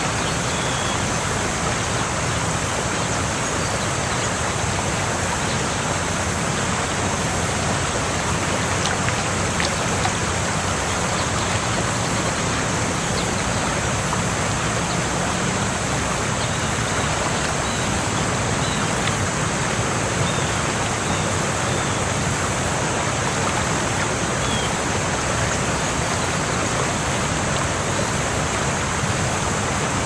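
Waterfall: water falling and splashing in a steady, unbroken rush.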